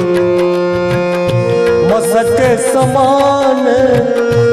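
Devotional music of harmonium and tabla: the harmonium holds steady chords over a regular tabla beat. About two seconds in, a singer's voice comes in on a held, wavering note.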